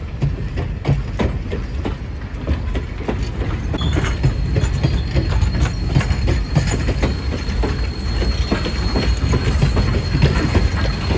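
Steam-hauled wooden-era passenger coaches rolling past on jointed track: a steady low rumble with irregular clicks and clatter from the wheels and trucks. A thin, steady high-pitched tone, like a wheel squeal, joins about four seconds in, as the 2-8-2 Mikado steam locomotive's tender comes alongside near the end.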